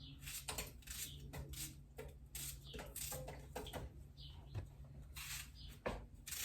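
Faint, irregular clicks and rustles, several a second, of a raw onion being cut up and handled.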